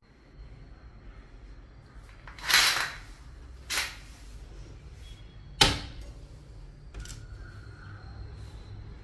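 A hinged glass window being pushed open: a rasping scrape of about half a second, a shorter scrape a second later, then a sharp knock around the middle and a lighter click a little later.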